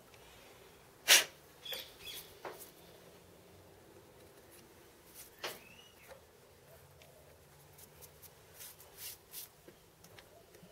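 A few sharp clicks and light metal taps from hands handling tools and the workpiece at a metal lathe. The loudest click comes about a second in, with fainter scattered ticks later.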